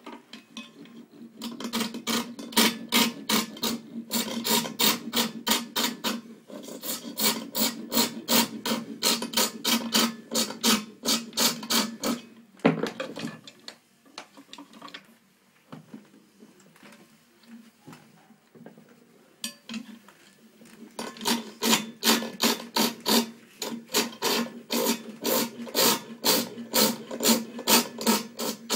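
Hand file rasping on a metal workpiece held in a bench vise, in quick even strokes. The filing stops a little under halfway through and starts again with the same rhythm about eight seconds later.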